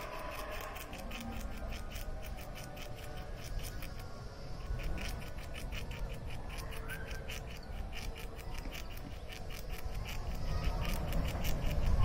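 A squirrel gnawing on a nut held in its paws: a fast run of dry scraping clicks as its teeth shave down the shell, coming in clusters with short pauses.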